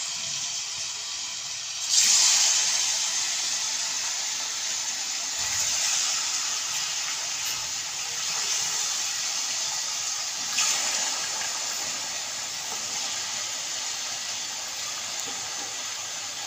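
Raw chicken pieces sizzling in hot oil in a steel karahi as more pieces are dropped in. A steady hiss, with a sudden louder burst about two seconds in and a smaller one near the ten-second mark.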